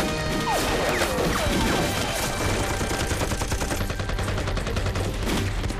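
A dense exchange of gunfire: many rapid shots from several guns, including bursts of automatic fire from submachine guns.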